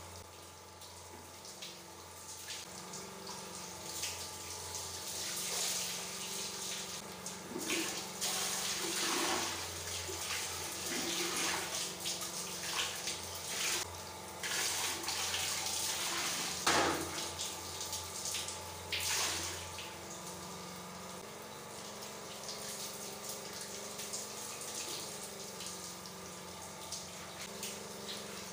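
Water poured from a plastic bowl splashing over a person's skin and onto the tiled floor in repeated pours, with several louder splashes in the middle and a steadier trickle later.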